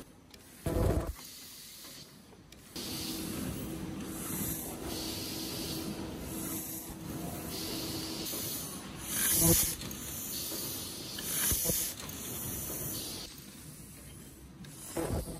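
Paper cup forming machine running, with short hisses of air repeating every second or two over a steady mechanical clatter, and a few louder thumps.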